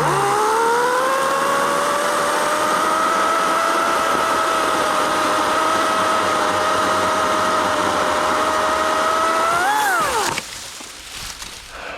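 EGO 14-inch 56-volt battery chainsaw running for about ten seconds with a steady electric-motor whine while cutting a branch piece. Its pitch climbs over the first few seconds, jumps briefly near the end, then winds down and stops as the trigger is released.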